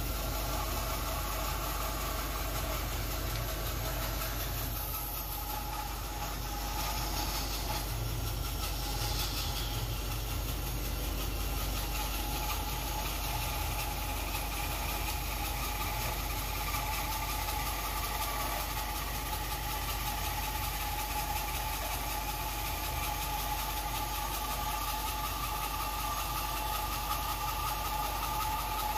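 Bandsaw running and resawing a small block of Sabah ebony (Diospyros durionoides), the blade cutting steadily through the dense wood; a steady machine hum with a few held whining tones.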